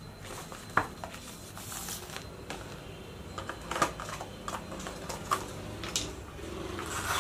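Unboxing handling noise from a cardboard phone box and its inner packaging: scattered taps, clicks and rustles of card and plastic, with one sharp click about a second in.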